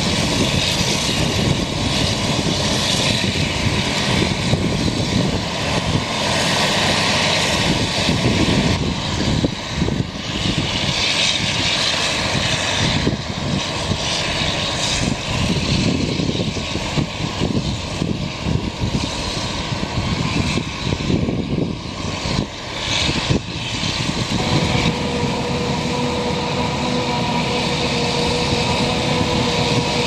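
Claas Jaguar 980 self-propelled forage harvester working through standing corn, its engine and chopping gear a loud, steady drone, with a Fendt tractor pulling a silage dumper alongside. In the last five seconds a steady whine joins the drone.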